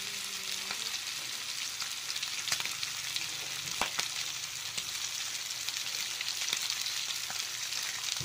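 Strips of bacon frying in hot oil in a pan: a steady sizzling hiss with scattered small pops.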